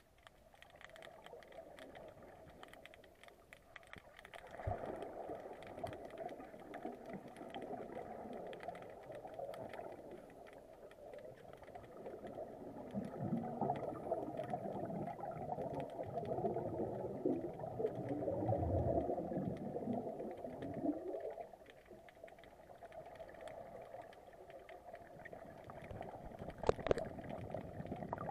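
Scuba divers' exhaled air bubbling from their regulators, heard underwater as a muffled gurgling that swells twice for several seconds, with a sharp click near the end.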